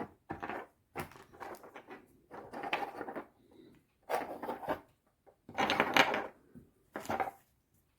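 Wooden chess pieces being taken out of their box and handled: irregular knocks and rustling, with short pauses between them.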